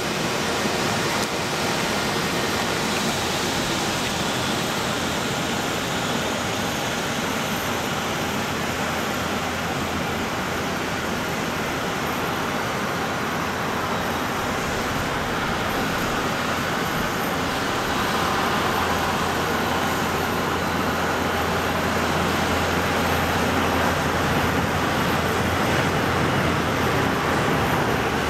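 Jet noise from an Airbus A340-300's four CFM56 turbofans as the airliner lands, a steady rushing noise with a high whine that falls in pitch over the first ten seconds. A low rumble builds in the second half as the aircraft touches down and rolls out on the wet runway.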